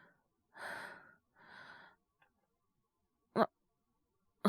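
A man's voice, acted as a sick young man with a cold and fever: two heavy, breathy sighs, then one short, sharp cough about three seconds in.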